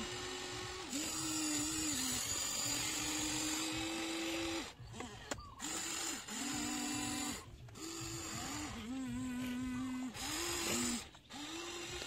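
Small electric motors of a radio-controlled toy excavator whining in short stop-start runs as it works its arm and bucket, each run a second or two long at a steady pitch that steps up or down from one move to the next.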